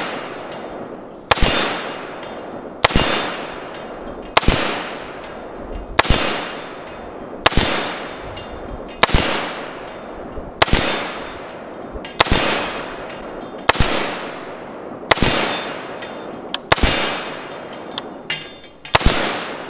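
A 5.56 AR-15 rifle (Palmetto State Armory PTAC kit) firing single, evenly paced shots about every second and a half, each sharp crack followed by a long ringing decay. There are about a dozen shots, with two close together near the end.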